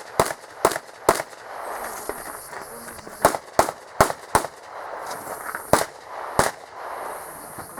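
Handgun shots fired in quick strings: three shots, then four more a couple of seconds later, then two more.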